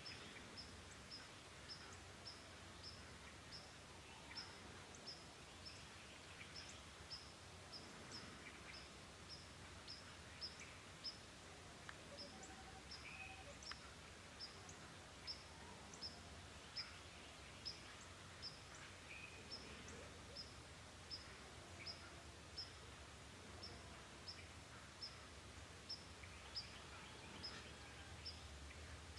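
Faint outdoor morning ambience: a high, even chirp repeating about twice a second, with a few scattered faint bird calls over a low hum.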